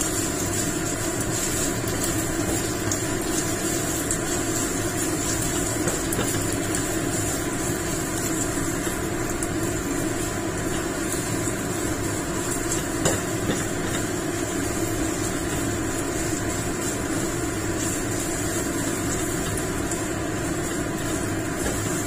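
A steady mechanical hum like a running motor, unchanging throughout, with a few faint ticks from a silicone spatula tossing pasta in a nonstick pan, one a little more distinct about halfway through.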